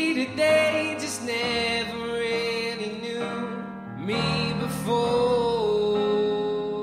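A song playing: a singer holding long, slightly wavering notes over instrumental backing.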